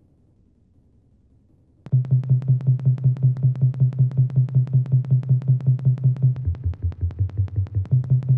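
About two seconds of near silence, then electronic remix music starts suddenly: a pulsing synth bass line under fast, evenly spaced electronic ticks. The bass steps down to lower notes about two-thirds of the way through, then comes back up.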